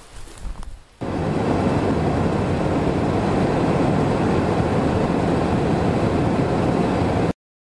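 A car driving on a road, with steady road and engine noise heard from inside the cabin. It starts abruptly about a second in and cuts off suddenly near the end. Before it come a few soft footsteps through dry grass.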